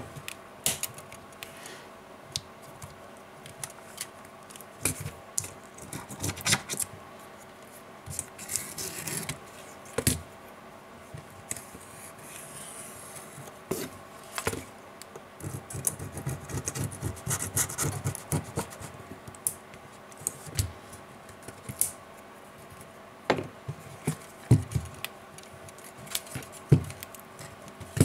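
Hand-handling noise from taking apart a Nexus 7 tablet: irregular clicks, taps and scrapes of plastic and metal parts as the frame, flex cables and internal boards are pried and moved with fingers and a metal pry tool.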